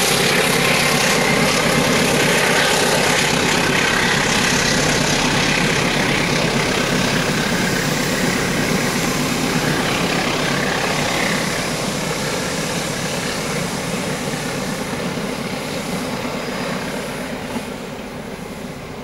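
Diesel locomotive hauling a passenger train past, its engine running and the wheels rolling on the rails. The sound holds steady for about half the time, then fades steadily as the train moves away.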